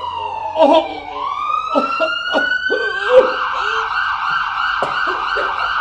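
Emergency-vehicle siren sound effect. It wails down, then back up, and from about halfway through switches to a fast, steady warble.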